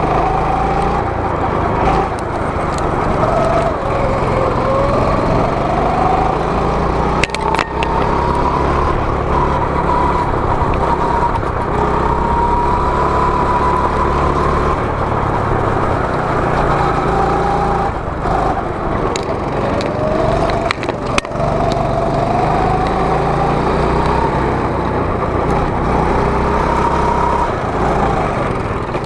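A go-kart's small engine running hard, heard from the driver's seat. Its pitch rises and falls several times as the kart speeds up and slows down, and two sharp knocks come through, about a third of the way in and again about two-thirds in.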